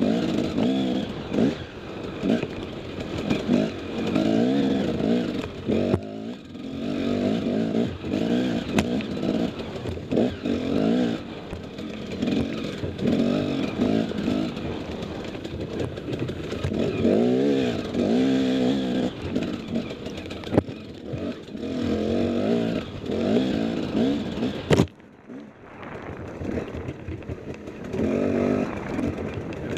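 KTM 250 XC-W two-stroke enduro motorcycle engine, ridden hard on a tight trail, its revs rising and falling constantly as the throttle is worked. About 25 seconds in there is a sharp knock, and the engine sound drops away for about a second before it picks up again.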